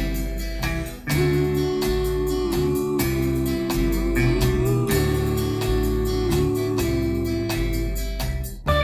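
Background music: a guitar-led tune with a steady beat and bass line, dipping briefly about a second in and again near the end.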